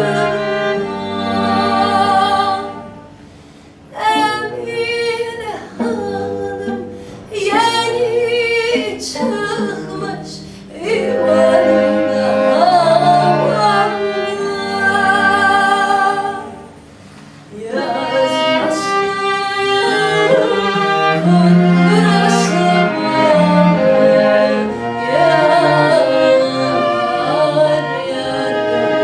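A woman singing a Turkish song with violin, viola and cello accompanying, the phrases broken by two short pauses, about three seconds in and around sixteen seconds.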